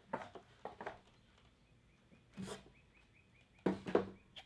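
Mystery boxes being handled: a few short knocks and taps, the sharpest of them near the end.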